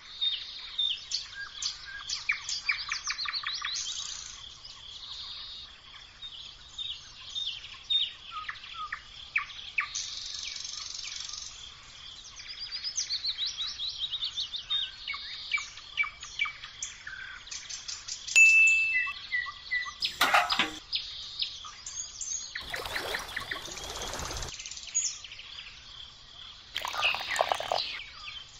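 Several small birds chirping and trilling in quick, repeated calls, with one held whistle about two-thirds of the way through. A few short noises cut in near the end.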